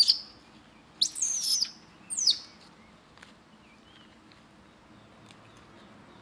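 An infant monkey screeching: three shrill, high-pitched squeals, each falling in pitch, in the first two and a half seconds. After them only a few faint ticks are heard.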